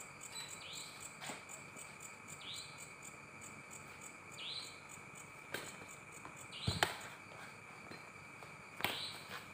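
Badminton rackets striking a shuttlecock during a rally: four sharp, irregularly spaced hits, the loudest about two-thirds of the way through. Under them runs a steady, high insect chirring.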